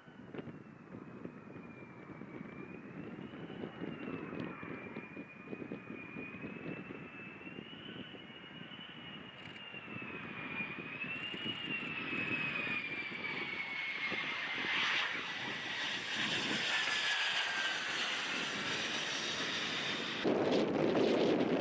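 Jet fighter engine running with a high wavering whine over a steady rush, growing louder; the whine slides down in pitch in the second half, and the sound gets louder suddenly near the end.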